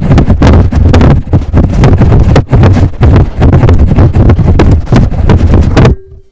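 A person tumbling down a red oak staircase: a rapid, loud run of thumps and knocks as body and head strike the steps, stopping abruptly about six seconds in.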